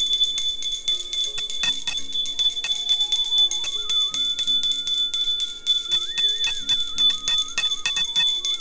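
Hand-held puja bell rung rapidly and without a break for the aarti, its high ringing tones held steady under fast strokes of the clapper. A slow melody plays beneath it.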